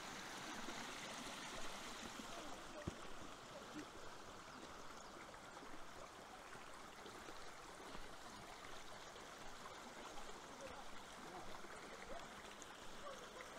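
A small hill stream running and trickling steadily, faint.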